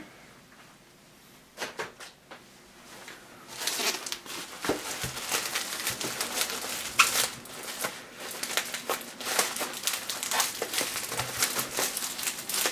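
Bubble wrap being handled and pulled off a package by hand: dense plastic crinkling and crackling with sharp crackles, starting about three and a half seconds in after a few faint clicks.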